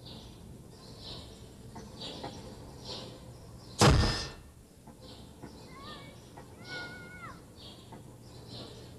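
A sharp, loud crack about four seconds in, dying away over half a second, over a soft hiss that repeats about every 0.7 s; a short whistle-like tone sounds around seven seconds.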